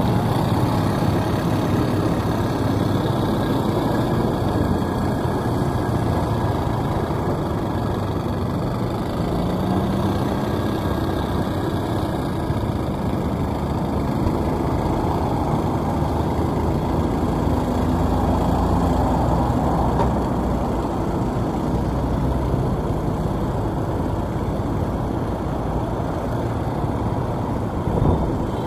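Steady car driving noise: engine hum and road rumble in city traffic, with faint rises and falls in engine pitch and a short knock near the end.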